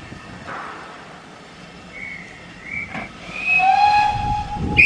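A railway whistle sounds two short high blasts, then one held blast of about a second and a half. The held blast ends in a sharp bang of a slam-door carriage door shutting.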